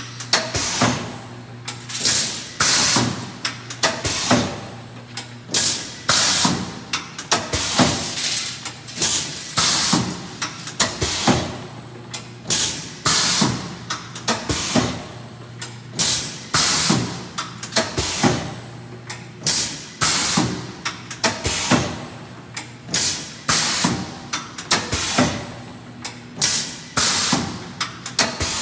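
Alloyd rotary blister sealer running, cycling about once a second with short clunks and bursts of air over a steady low hum.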